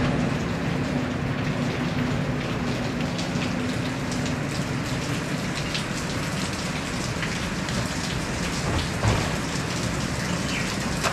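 Steady heavy rain falling, with a single short knock near the end.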